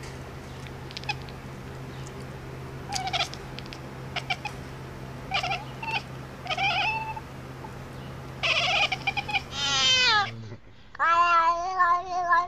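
A cat making short chirping calls every second or two, then near the end a falling-pitched meow and a longer wavering meow. A steady low hum runs under the first part and stops about ten seconds in.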